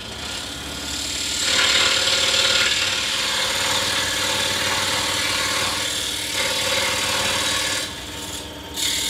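Scroll saw running with a number 3 Pegas modified-geometry reverse-tooth blade cutting through a wooden blank; the cutting grows louder about a second and a half in and eases off briefly near the end.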